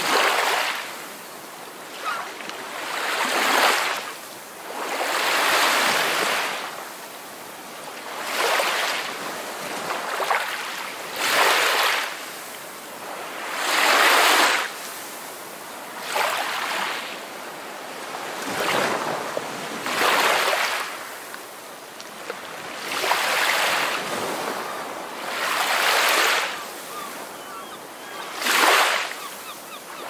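Ocean surf: waves washing in one after another, each a rushing surge that swells and fades, about every two to three seconds.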